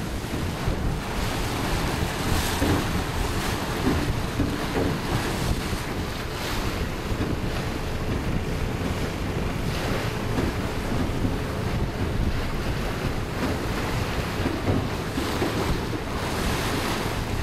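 Wind buffeting the microphone, gusting every few seconds, over water rushing and splashing along the hull of a moving ferry.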